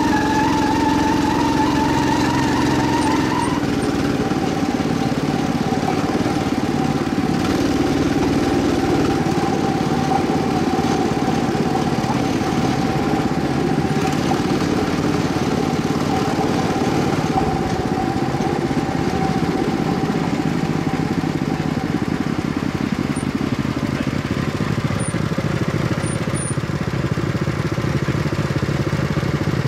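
Aluminium track-maintenance cart running along the rails, its small motor droning steadily, with a steady whine that fades in the last third of the run.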